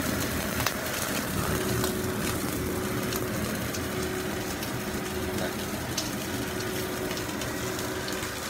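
Chicken thigh steak sizzling in a frying pan, a steady hiss with many small crackling pops, over a steady low hum.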